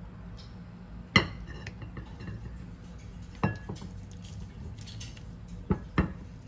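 Pot rim and chopsticks clinking against a ceramic bowl as a saucy stew with glass noodles is tipped and scraped into it: four sharp clinks, the loudest about a second in and two close together near the end, over a low steady hum.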